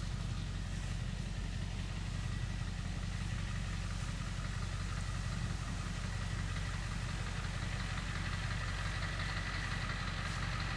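An engine idling steadily: an even low hum that does not change, with a faint thin tone above it.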